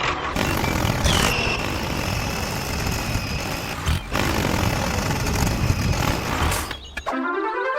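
Loud, dense heavy-machinery engine noise with a high whine that drops in pitch about a second in and then holds steady for a few seconds. The noise breaks briefly near the middle and stops shortly before the end.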